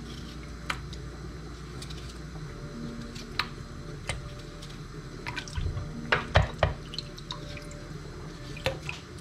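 Potato pieces cut by hand with a knife dropping into a bowl of water, with water dripping and scattered small clicks. A cluster of louder plops and knocks about six seconds in.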